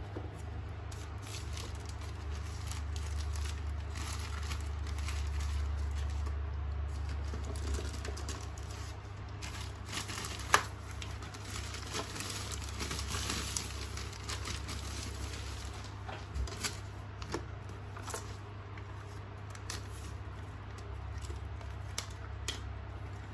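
Plastic packaging wrap crinkling and rustling as parts are lifted out of a cardboard box, with scattered light knocks and clicks of plastic parts against cardboard, one sharper click about ten seconds in. A steady low hum runs underneath.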